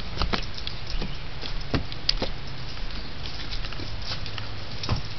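Scattered light knocks and clicks at irregular moments over a steady low hum and background hiss.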